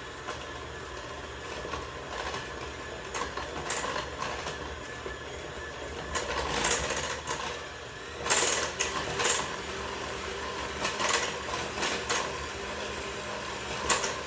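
Electric mixer motor running steadily, beating buttermilk into a thick cake batter, with irregular clicks and clatters over the top.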